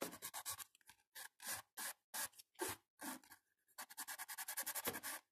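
Hand nail file rasping across a hardened acrygel nail extension, shaping it. Quick short strokes at first, a few slower single strokes in the middle, then a fast run of strokes near the end.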